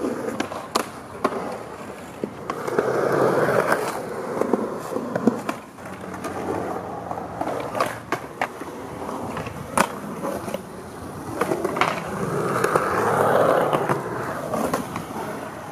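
Skateboard wheels rolling on concrete, the roar swelling twice, with many sharp clacks of the board hitting ledges and ground.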